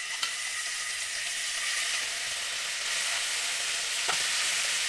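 Marinated chicken pieces sizzling as they are dropped one by one into hot oil and butter in a nonstick frying pan, the steady hiss a little louder about three seconds in. A utensil knocks once against the pan near the end.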